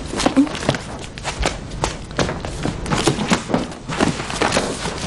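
Rapid, irregular taps, knocks and rustles of scrolls and books being handled and shifted on a wooden shelf.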